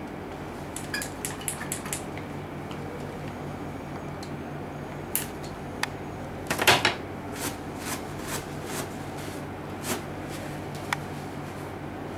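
Plastic hijama cups and their hand suction pump being handled: a quick run of small clicks about a second in, then scattered clicks and knocks, the loudest about six and a half seconds in, over a steady low hum.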